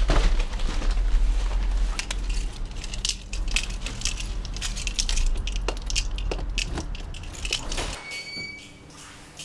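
Irregular crunching and crackling over a low rumble. The rumble cuts off suddenly about eight seconds in.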